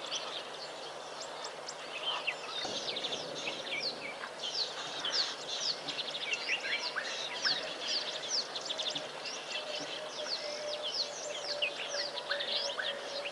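Many small birds chirping at once, a dense run of quick high notes that drop in pitch, over a faint steady hum.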